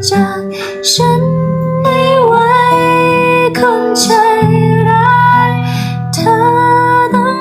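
A woman singing a slow ballad in phrases of long held notes with vibrato, over guitar accompaniment.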